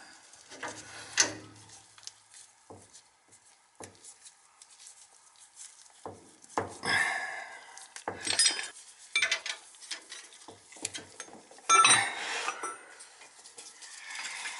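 Intermittent metal clinks and scrapes as a brass fitting is handled and turned onto a copper oil line, with brief louder clatters about seven and twelve seconds in.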